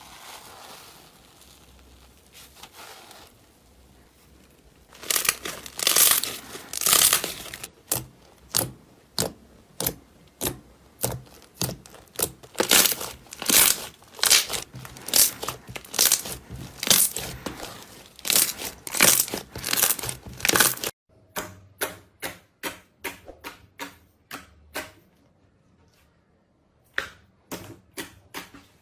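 Slime being squeezed, stretched and pulled apart in the hands, making sticky crackles and sharp pops. It is faint at first and loud and dense from about five seconds in. After a sudden cut about two-thirds of the way through, a quieter run of quick clicks and pops follows.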